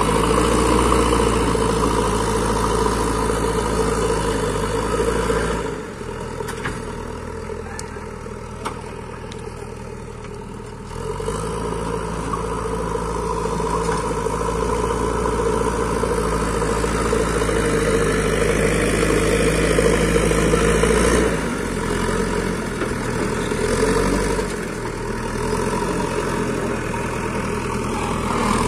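JCB backhoe loader's diesel engine running under load while the front bucket pushes and levels soil. The engine note drops and goes quieter for about five seconds from about six seconds in, then picks up again.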